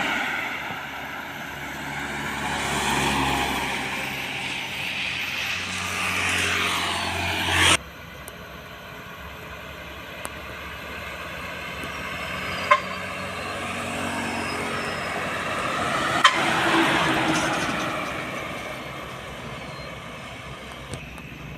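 Trucks driving past on a road, engine and tyre noise swelling and fading. The sound cuts off abruptly about eight seconds in, and a second vehicle then passes more quietly, with two brief sharp clicks.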